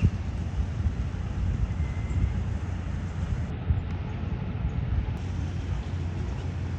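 Low, gusty rumble of wind buffeting the microphone outdoors, with a faint bird chirp about two seconds in.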